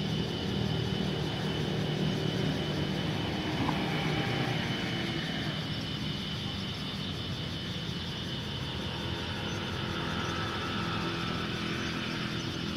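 Road traffic: a steady hum of vehicle engines passing on the surrounding streets, with a thin steady high tone above it.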